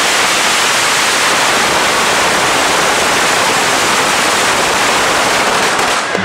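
Strings of firecrackers going off at close range, the bangs so rapid and dense that they merge into one continuous, even crackle.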